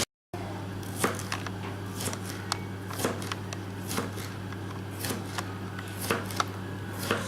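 Knife cutting cucumbers into small pieces: irregular sharp taps and clicks of the blade going through and meeting the board, over a steady low hum.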